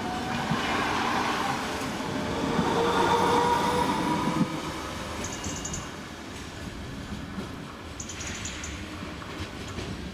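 A Bombardier Flexity Swift tram passes close by with wheels rumbling on the rails and a steady electric motor whine. It is loudest a few seconds in, then drops away suddenly and fades to a low rumble as it moves off.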